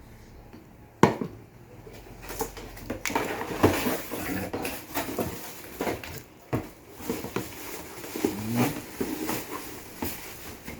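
Unboxing a blender by hand: a sharp knock about a second in, then irregular rustling, tapping and clattering of plastic parts and packaging.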